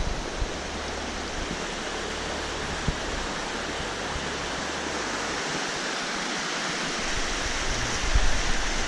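Fast, silty glacial river (the Arve) rushing over rapids in a steady, even roar of white water.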